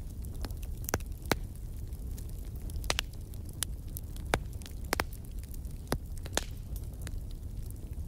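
Burning coal fire crackling: sharp pops at irregular intervals, several of them close together in pairs, over a steady low rumble.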